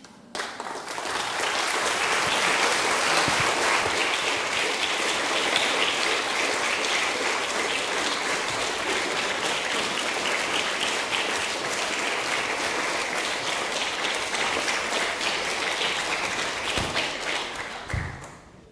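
Lecture-theatre audience applauding: steady, dense clapping that builds up over the first second or two and dies away near the end.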